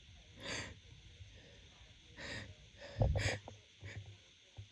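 A woman's short, noisy breaths, about four of them, the catching breaths between sneezes in a pollen-allergy sneezing fit.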